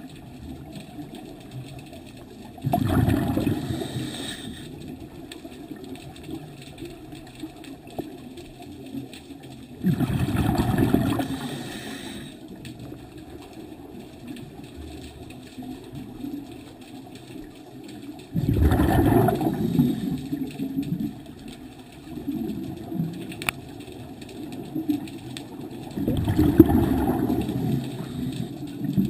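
Scuba diver's regulator breathing underwater: four long exhalations, a rush of bubbles gurgling past the camera about every eight seconds, with quieter breathing between.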